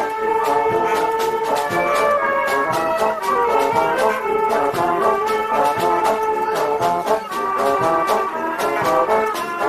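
Brass band playing a dobrado, the Brazilian march: trombones and trumpets carry the melody over a steady march beat of drum strokes.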